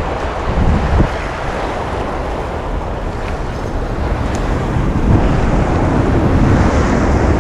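Surf washing onto a beach, with wind buffeting the microphone in a steady low rumble.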